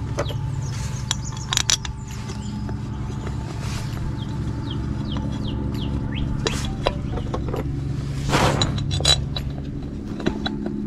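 Clicks, knocks and a brief scrape as a valve cover is handled and fitted back onto an overhead-valve mower engine's cylinder head, over a steady low hum in the background.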